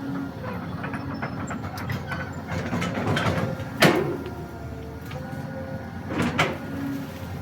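Excavator at work: its diesel engine running steadily, with sharp knocks or clanks about four seconds in and again a couple of seconds later.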